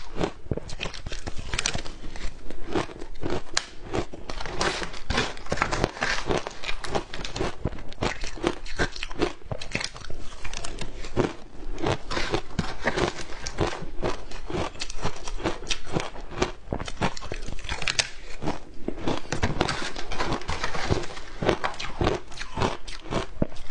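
Close-miked crunching and chewing of frozen ice dusted with matcha powder: a fast, unbroken run of crisp cracks and crunches as the ice is bitten and ground between the teeth.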